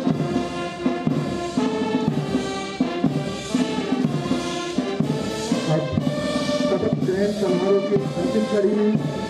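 Military brass band playing a march, with trumpets and trombones carrying the tune over a steady drum beat.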